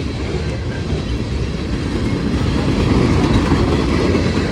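CSX manifest freight train's cars rolling past close by: a loud, steady rumble of wheels on the rails.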